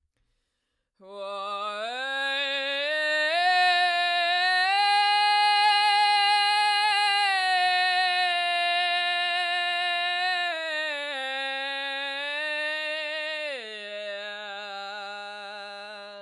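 A woman singing unaccompanied in full chest voice: one long unbroken phrase that starts after about a second of silence. It steps up in pitch over a few seconds, holds the high note for about five seconds, then steps back down to the low starting note near the end.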